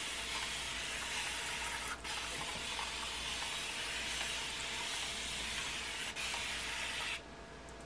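Spray bottle misting water onto hair in a steady hiss, broken by two very brief pauses, about two seconds in and about six seconds in, and stopping shortly before the end.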